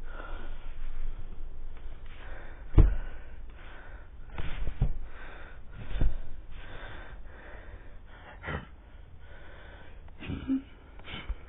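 Yellow Labrador retriever sniffing and snorting in short, breathy puffs, several of them sharper than the rest.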